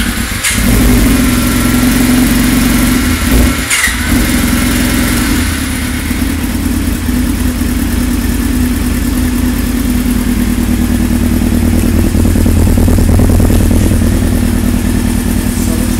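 Yamaha R6 600 cc inline-four engine running just after its first start following a full rebuild. It runs loud and steady, with a brief dip about four seconds in.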